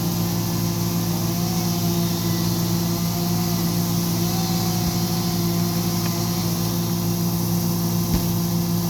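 Engine running steadily at a constant speed: an even low hum with a faint higher whine that wavers slightly in pitch.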